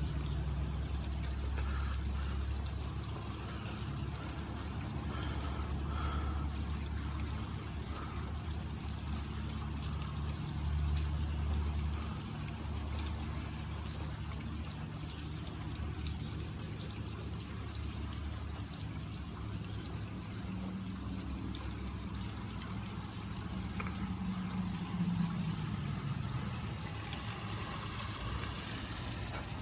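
Heavy rain falling steadily, with running water.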